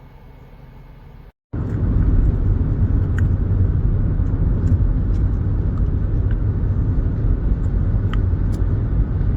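A steady, loud low rumble that starts abruptly after a brief cut about a second and a half in, with a few faint ticks scattered through it.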